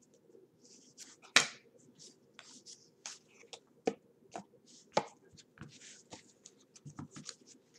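Trading cards handled by hand: an irregular series of light clicks and taps as cards are flipped through and slid off a stack onto the table, with soft sliding between. The sharpest tap comes about a second and a half in.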